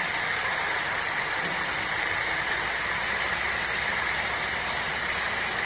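Steady stream of water pouring from a crane's clamshell grab bucket and splashing on wet concrete, with the crane's engine idling underneath.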